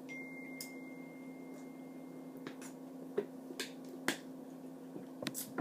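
Scattered small wet clicks and smacks, about nine spread unevenly, over a steady low hum: mouth and swallowing sounds of someone taking a sip of a drink.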